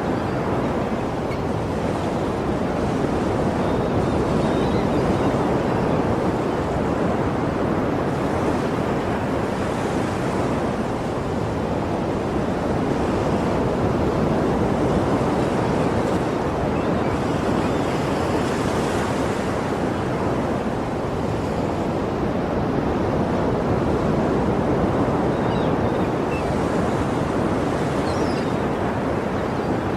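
Sea surf: a steady rush of waves that swells and eases about every ten seconds.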